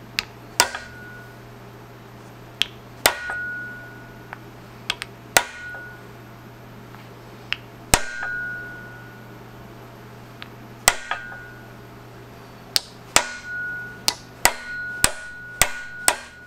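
Hammer taps driving a wooden wedge into the top of a new handle seated in a lath hammer's steel head, each tap with a short metallic ring. The taps come a few seconds apart at first and quicken to about two a second near the end.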